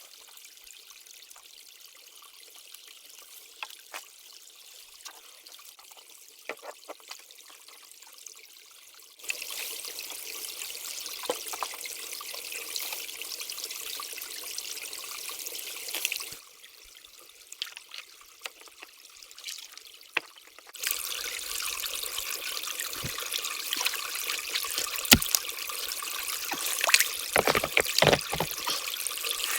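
Shallow creek water trickling and running over stones, its level jumping up and down abruptly a few times. Scattered clicks and, in the last few seconds, heavier knocks and splashes come from sticks and stones being handled to dam the creek.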